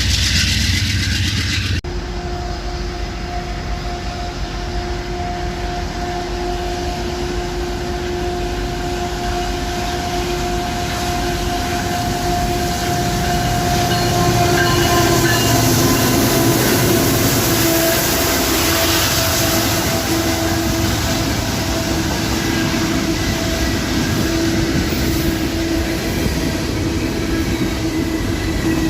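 Train rolling past on the rails, a steady rumble and rush of wheels with a sustained whining tone over it, typical of wheels squealing on the rail. The sound changes abruptly about two seconds in.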